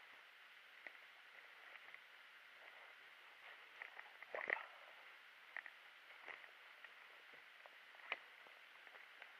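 Faint footsteps on a dry forest floor: scattered crackles of twigs and pine litter underfoot, with a louder crunch about halfway through and a sharp snap near the end.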